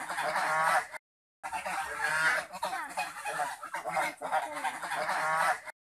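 A flock of domestic geese and ducks calling, with many pitched calls overlapping without a break. The sound cuts to silence twice for about half a second, once about a second in and once near the end.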